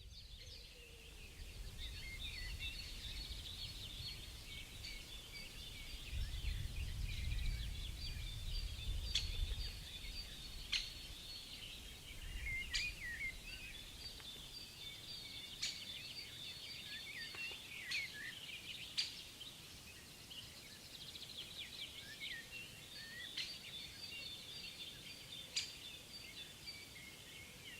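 Birds singing and calling around a forest lake: a dense chorus of high chirps throughout, with a sharp single chirp every few seconds. A low rumble sits underneath for roughly the first ten seconds.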